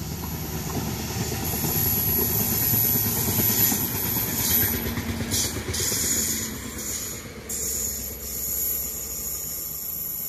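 Multiple-unit passenger train passing at speed, the rolling noise of its wheels on the rails growing to a peak about three to four seconds in and then fading away.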